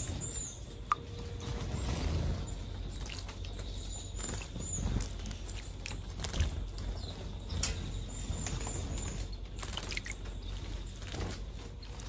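Long-tailed tit and great tit bathing in a shallow bird bath: wings fluttering and flicking water, with a few short sharp splashes. Several brief, thin, high chirps come in between.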